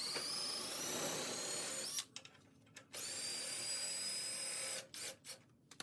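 Handheld electric power tool run twice for about two seconds each, with a high whine; the pitch climbs as the motor spins up on the first run and holds steady on the second.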